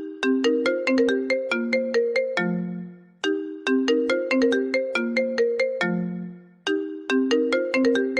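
iPhone ringtone playing: a looped electronic melody of quick, bell-like plucked notes, each phrase ending on a lower held note that fades before the phrase starts again, about every three and a half seconds.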